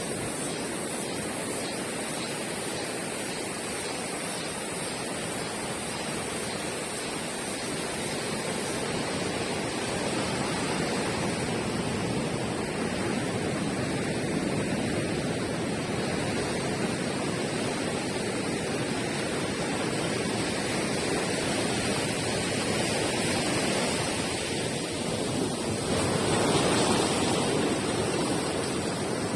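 Steady outdoor rushing noise, swelling louder for a couple of seconds near the end, with a faint high pulsing in the first third.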